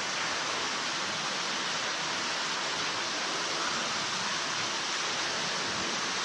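Steady rushing of a large underground waterfall falling about 300 feet into a cave pit.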